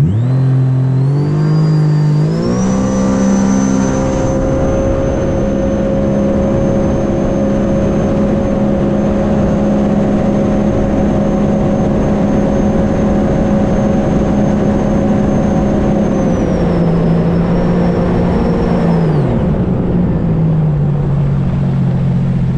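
A 2021 Sea-Doo RXT-X's supercharged Rotax engine revs up to full throttle, holds steady at top speed with a high supercharger whine riding over the engine note, then eases off in two steps near the end. Heavy wind rush runs underneath.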